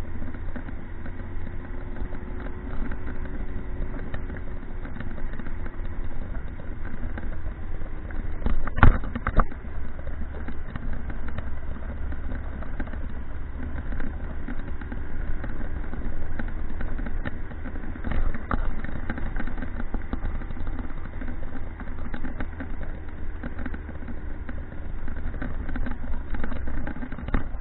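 Motorcycle engine running while riding, its pitch drifting gently up and down, over a steady low rumble. One sharp knock comes about nine seconds in.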